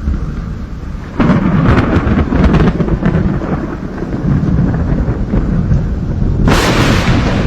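Thunder during a thunderstorm: a loud crackling clap about a second in that rolls on as a low rumble, then another sharp, brighter crack near the end.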